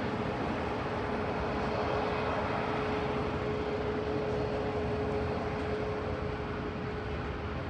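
Jet airliner engine noise: a steady rush with one steady tone running through it that fades out near the end.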